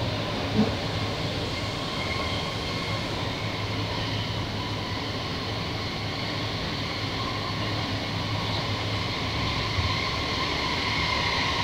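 Steady running noise inside a Sydney S set double-deck electric train carriage under way: an even rumble and hum with a faint high whine, and one light knock about half a second in.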